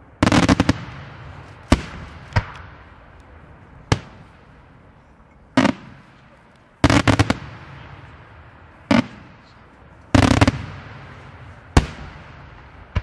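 Daytime aerial fireworks shells bursting in loud bangs: rapid clusters of reports near the start, around seven seconds and around ten seconds, with single sharp bangs in between, each trailing off in an echo.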